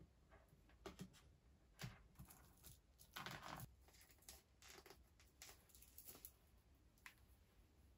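Faint handling sounds of a beaded strap cord being pulled through a clear plastic phone case: a string of soft clicks and small rustles, with a longer rustle about three seconds in.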